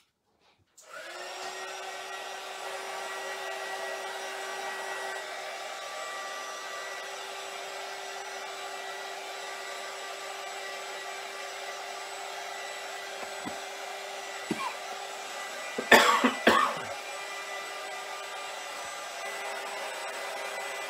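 Handheld embossing heat tool switched on about a second in and running with a steady whirring hum, blowing hot air to speed the drying of wet glue under freshly applied scrapbook paper. About sixteen seconds in, two short loud sounds come in quick succession.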